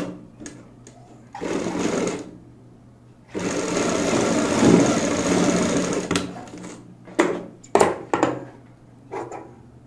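Domestic sewing machine stitching a seam through a fabric waistband, running in two bursts: a short one about a second and a half in and a longer one of about three seconds starting just after three seconds. A few sharp clicks follow near the end.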